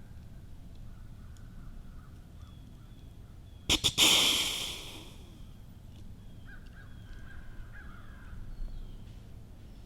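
A whitetail snort-wheeze: two quick puffs of air, then a longer hissing wheeze that fades over about a second, about four seconds in. In the rut it is a buck's challenge call, and hunters imitate it to draw a buck in.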